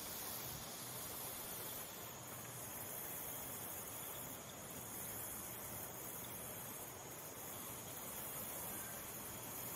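Faint, steady outdoor background: a continuous high-pitched insect chorus over a soft hiss.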